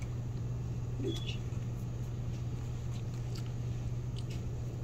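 Steady low hum of room tone, with a few faint clicks and rustles from a label and small packaging being handled on a countertop.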